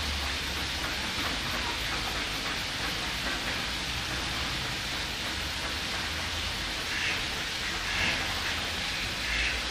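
Steady rushing noise of water, with a few short calls near the end from the mallards on it.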